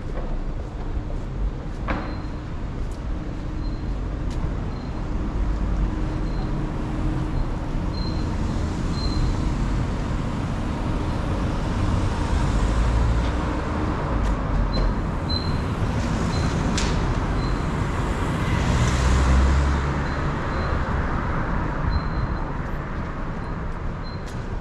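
City street traffic: car engines and tyres passing on a narrow street over a steady low rumble, the noise swelling about halfway through and again about three quarters in. A faint, short, high chirp repeats now and then.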